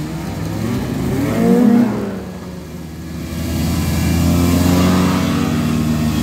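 Vintage snowmobiles' two-stroke engines passing close by one after another. The first sled's engine note peaks and drops in pitch as it goes by, about one and a half seconds in. The next sleds then build up louder as they approach and pass.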